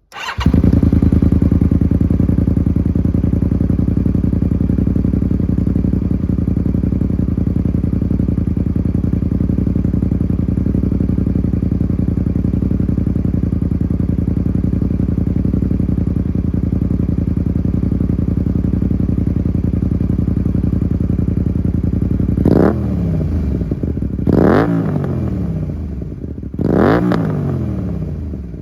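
Honda VTR250's 90-degree V-twin breathing through a DANMOTO conical GP slip-on silencer, baffle fitted, on a Valiente Allegria header pipe. It starts up and idles steadily with a very deep bass note, then takes three quick throttle blips near the end, each revving up and falling straight back to idle.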